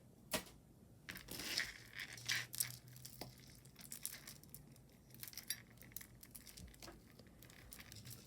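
Faint, scattered clinks and light rattling of costume jewelry and metal chains being handled and dropped, with some soft crinkling.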